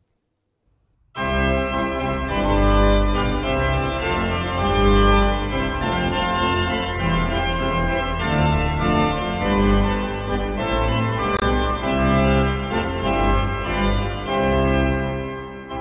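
Church organ starting suddenly about a second in, playing full held chords over deep bass notes: the closing postlude after the benediction.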